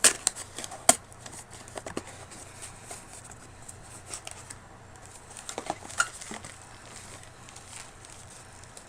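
Box and packaging being handled and opened by hand: scattered sharp taps, clicks and rustles, the loudest at the very start and about a second in, with another cluster around six seconds.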